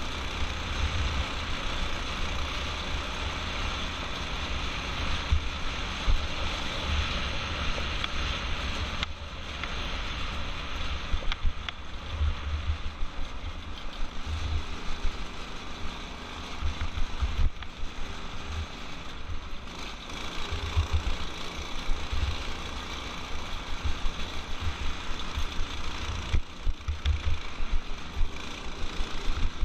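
Off-road go-kart with a torque converter drive running at speed over a dirt road: the small engine runs steadily under a heavy low rumble of wind buffeting the microphone.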